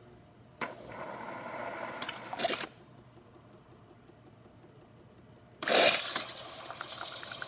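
Gaggia Accademia super-automatic espresso machine running its milk frother on water: a noisy spell of hissing and sputtering starts about half a second in and ends in a louder burst, faint regular ticking follows, and then a loud burst near the end opens a steady rushing flow.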